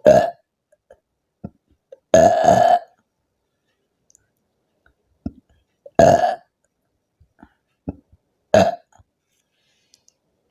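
A woman burping loudly four times, a few seconds apart, from gas built up by drinking carbonated soda; the second burp, about two seconds in, is the longest.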